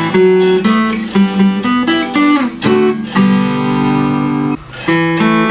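Acoustic guitar playing a slow, relaxing piece in plucked single notes. About three seconds in, a chord is held for over a second, then cuts off briefly before the plucked notes resume.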